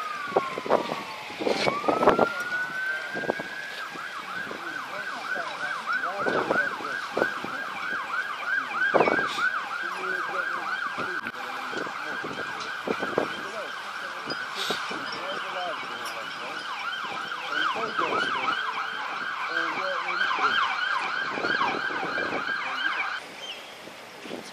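Emergency vehicle siren: a wail falling in pitch and then climbing again, switching a few seconds in to a fast yelp that repeats steadily for about twenty seconds and cuts off suddenly near the end.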